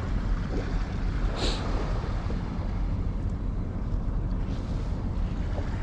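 Steady low rumble of wind on the microphone, with a brief hiss about a second and a half in.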